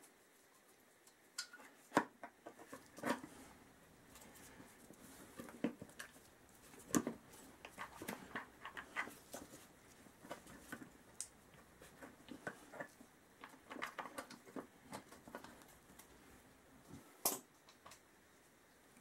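Plastic coolant reservoir bottle being handled and worked into place by gloved hands among the motorcycle's hoses: faint, irregular light taps, knocks and clicks, one sharper click near the end.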